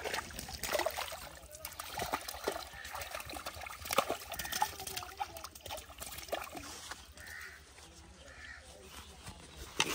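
A hooked fish thrashing at the water surface, splashing irregularly. The splashes come thick through the first several seconds, the biggest about four seconds in, and then ease off to lapping water.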